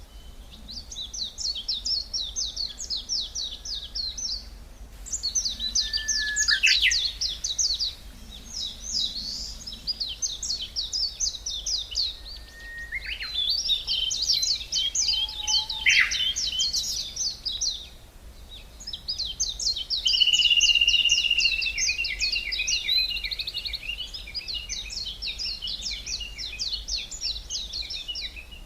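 Songbirds singing: fast, high trilling song phrases a few seconds long, repeated one after another with short pauses, and a few single sliding calls between them.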